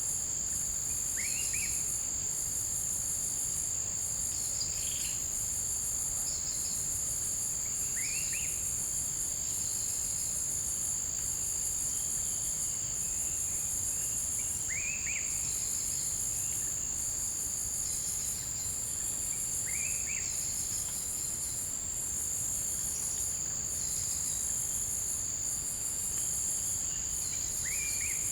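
Forest insect chorus: a steady high-pitched drone with a higher, pulsing buzz above it that breaks off and resumes. A bird gives a short sweeping call five times, about every six or seven seconds.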